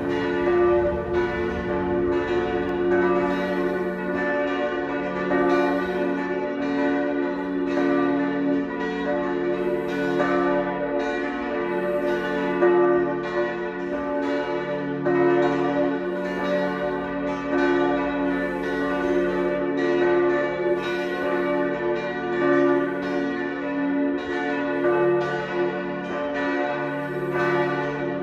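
Several church bells in a tower ringing together in a full peal, their strikes overlapping about one to two a second, each note ringing on.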